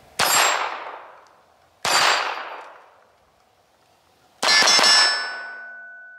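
Three handgun shots, the second about one and a half seconds after the first and the third about two and a half seconds later, each with a sharp report and a fading echo. After the third, a struck steel plate target rings on with a steady tone that fades slowly.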